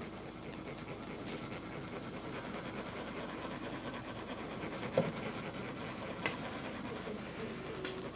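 Faint steady scratching and rubbing noise, with a sharp click about five seconds in and a smaller one just after six seconds.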